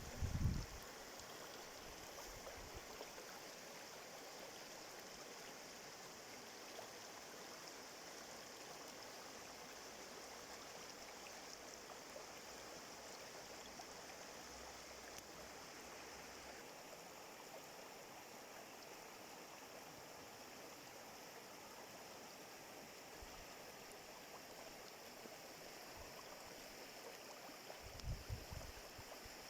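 Steady running water of a small stream, faint and even. Short low rumbles, like wind buffeting the microphone, come right at the start and again near the end.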